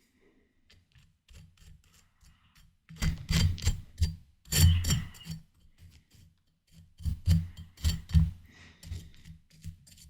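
Close-miked biting and chewing of crisp, juicy watermelon: wet crunching and smacking in several bursts, with a quiet pause over the first few seconds.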